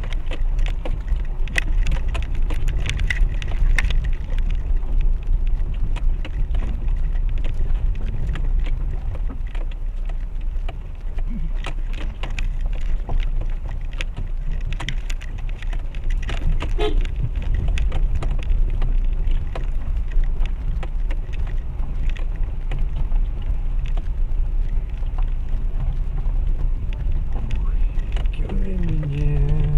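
Renault Duster driving slowly over a rough, stony mountain road: a steady low rumble of engine and tyres, with frequent short knocks and rattles from stones and the suspension.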